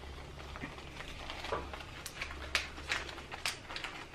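Faint paper rustling and a few light clicks as paper tea-bag envelopes are opened and tea bags pulled out by their strings, over a low steady hum.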